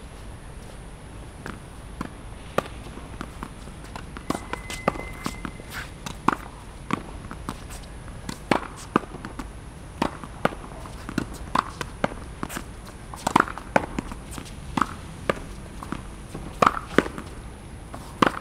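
Tennis ball being hit against a practice wall: a run of sharp, irregular knocks from racket strikes, the ball hitting the wall and bouncing, about two a second.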